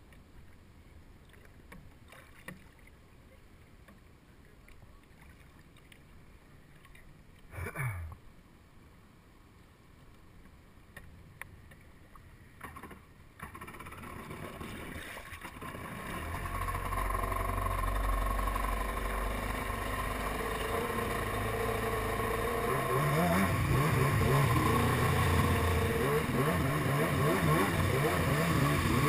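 Kawasaki SX-R 800 stand-up jet ski's two-stroke twin, fitted with a TBM dry pipe exhaust and new carburetors, starts about halfway through after a quiet stretch. It runs at a low idle, then picks up revs and pulls away near the end.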